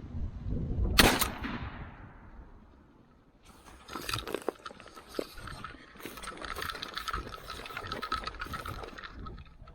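A shotgun blast about a second in, with a fading echo. From about three and a half seconds, a dense crackling and rustling runs for about six seconds.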